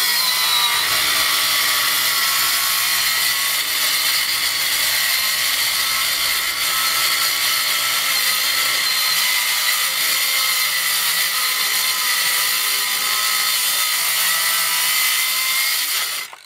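Ryobi circular saw with a carbide-tipped Diablo blade running steadily through fiber cement board, a loud, even whine over grinding noise that cuts off near the end. The cement board is wearing out the carbide blade.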